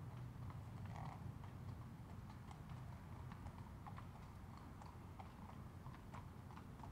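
Hooves of two police horses clip-clopping faintly and irregularly at a slow walk on concrete.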